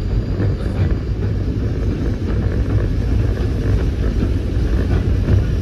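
Great Orme Tramway cable-hauled bogie tram car running up the track: a steady low rumble of wheels on rail with light scattered rattling.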